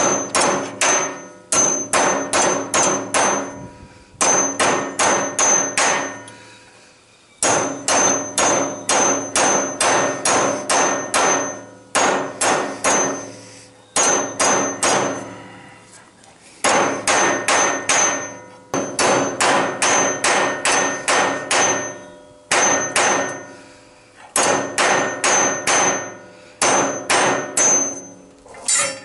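Hammer striking a steel rod against a bench vise to straighten it: runs of quick metallic blows, about three or four a second, broken by short pauses, with the steel ringing after each blow.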